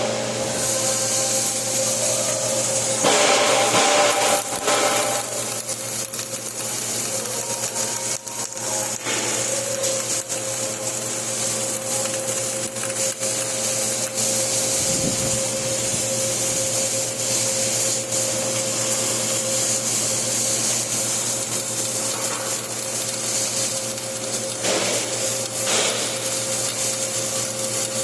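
Flux-cored arc welding: the arc's steady crackling hiss over a steady hum from the welding machine.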